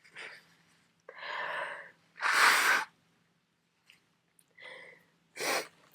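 A person with a head cold sneezing in a long fit: a drawn-in breath, then a loud sneeze about two seconds in, and a shorter, sharp burst near the end.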